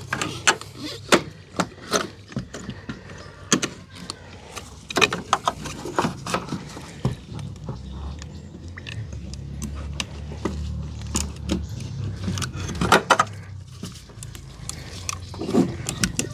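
Irregular clicks, taps and rattles of hard parts being handled as the fuel pump assembly is worked out of the car's fuel tank, over a low steady hum.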